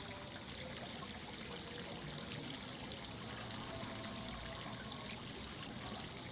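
Steady stream of running, trickling water, with faint held tones underneath.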